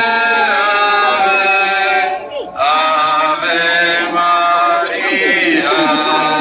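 A slow hymn sung in long held notes, with a man's voice to the fore and a short breath break partway through.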